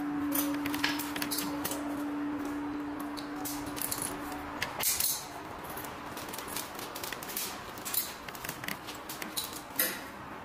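A steady hum for the first four and a half seconds, which then stops abruptly, followed by scattered clicks, taps and rattles of a red plastic wire-feed conduit being uncoiled and handled on the floor.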